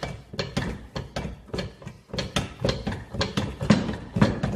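Bench shop press being worked to press a new bearing into an ebike hub motor's side cover: a steady run of quick mechanical clicks and knocks, about four a second.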